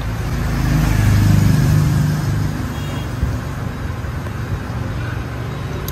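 Low, steady motor-vehicle engine rumble, swelling louder about a second in and easing back after a second or so.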